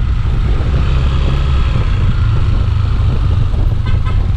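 Steady wind rush on a helmet microphone over a Yamaha Aerox 155 scooter's engine while riding through town, with a brief run of horn beeps near the end.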